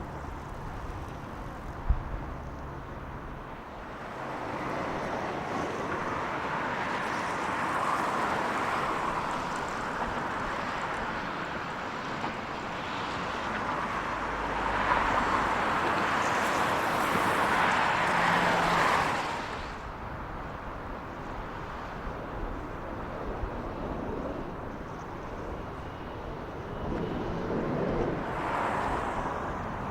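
Military aircraft of a parade flypast passing overhead. Their noise builds to a loud peak, falls away sharply, and swells again briefly near the end as another aircraft passes.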